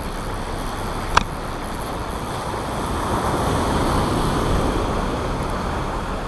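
Surf washing up the beach, swelling to a peak midway and fading, over a steady low rumble. A single sharp click about a second in comes from the loosely closed camera housing.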